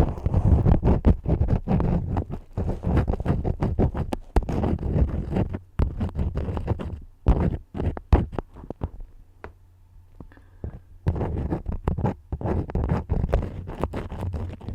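Crayons scribbling and scraping close up in quick, irregular strokes. The strokes thin out into a quieter stretch about eight seconds in and pick up again around eleven seconds.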